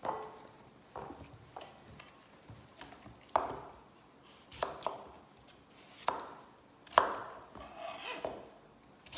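Kitchen knife cutting raw potatoes into wedges on a plastic cutting board, a sharp knock of the blade meeting the board about once a second.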